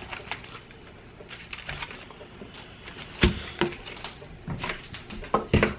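Hawaiian rolls being handled out of their cardboard tray and plastic bag: scattered light rustles and clicks, with a sharper knock about three seconds in and another near the end.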